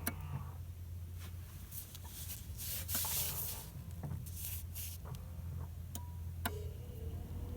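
Steady low hum with scattered light clicks and a brief rustle about three seconds in.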